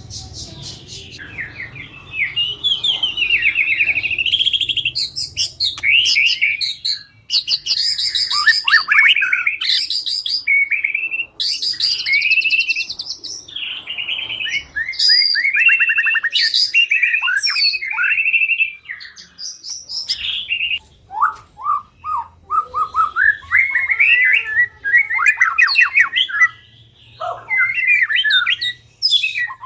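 White-rumped shama (murai batu) singing: a run of varied whistled phrases, rapid trills and harsh rattling notes, delivered in bursts with short pauses between them.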